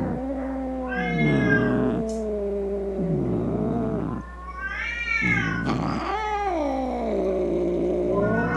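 Angry domestic cat yowling in long, drawn-out wails that rise and fall in pitch, one call running straight into the next, with fresh higher-pitched cries about a second in, around five seconds in and near the end.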